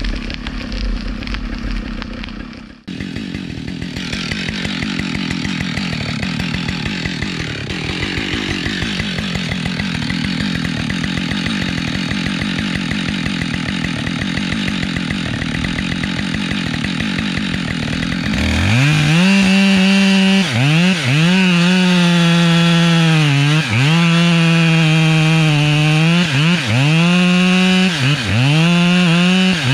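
Husqvarna 572XP two-stroke chainsaw idling, then, about two-thirds of the way through, revved up to high steady revs. The revs dip sharply and come back up every second or two.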